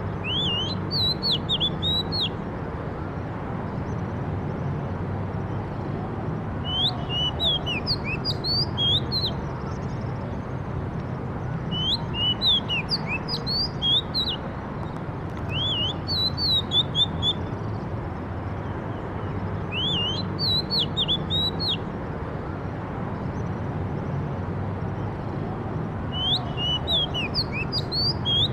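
A songbird singing in repeated phrases of quick, high whistled notes that sweep up and down, each phrase lasting a couple of seconds, with pauses of a few seconds between them, six phrases in all. A steady low background rumble runs underneath.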